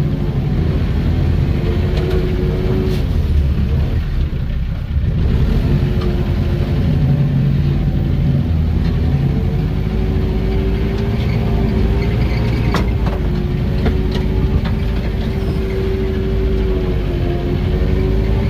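Small forest machine's engine running under load while it drives over a snowy forest track, its pitch rising and falling with the throttle, with a sharp knock from the machine about thirteen seconds in. Heard from the cab.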